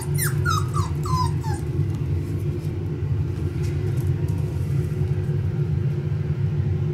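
Five-week-old Pomsky puppy whimpering: a quick run of about five short, falling whines in the first second and a half, over a steady low rumble.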